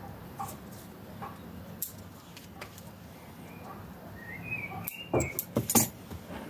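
Bonsai scissors snipping Chinese privet twigs: a few sharp clicks, loudest in a cluster about five to six seconds in. A bird chirps in the background just before that cluster.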